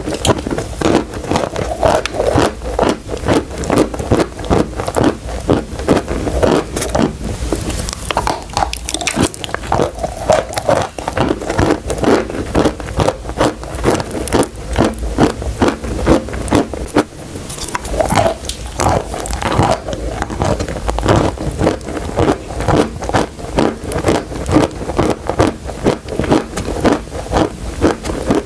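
Close-miked biting and chewing of crunchy chalk and clay: a rapid, unbroken run of sharp crunches and crackles.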